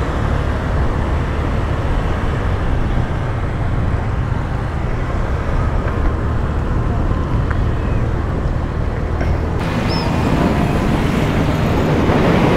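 Motor scooter riding along a city road: its small engine running steadily under a constant rush of wind on the microphone, with traffic around it.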